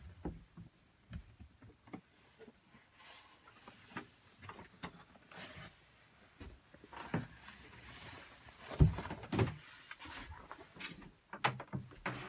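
Scattered knocks, bumps and rustling from someone moving about a small boat cabin with a handheld camera, the loudest thumps a little past the middle and a cluster of sharp clicks near the end.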